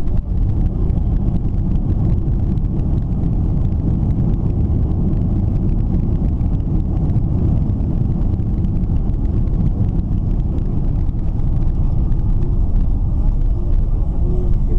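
Loud, steady low rumble of a Boeing 767-300 airliner as heard inside the passenger cabin during landing.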